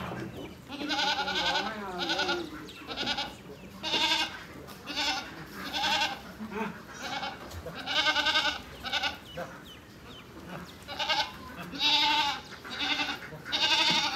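Goats bleating again and again, about a dozen calls roughly a second apart, each with a trembling, quavering pitch.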